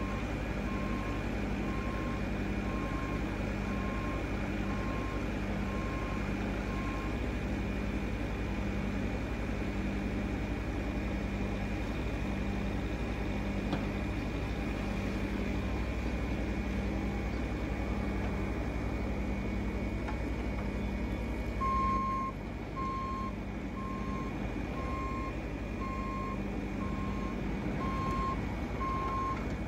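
2018 Bobcat E42 mini excavator's 43-horsepower diesel engine running steadily as the machine moves, with its motion alarm beeping about once a second during the first several seconds and again for the last quarter.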